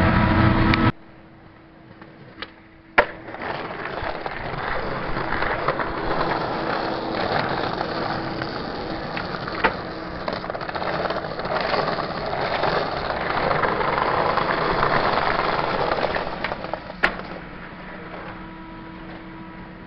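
Skateboard wheels rolling over brick pavers: a rough, steady rumble lasting about thirteen seconds. Sharp clacks of the board come twice a few seconds in, once midway and once near the end.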